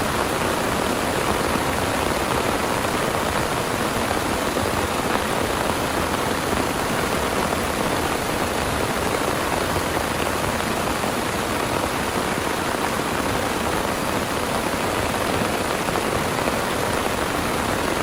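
Heavy rain pouring steadily, an even unbroken hiss of rain falling on surfaces.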